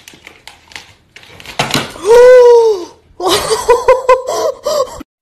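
A person laughing hard at the cat: a long high-pitched squeal that rises and falls, then a run of quick breathy laughs. A few light knocks come in the first second.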